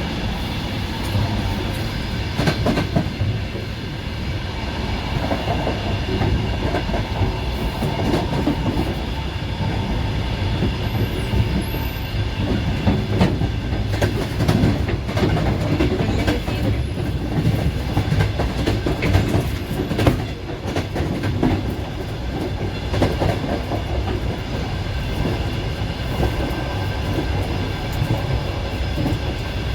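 Passenger train running, heard from on board: a steady rumble with wheels clicking over the rail joints.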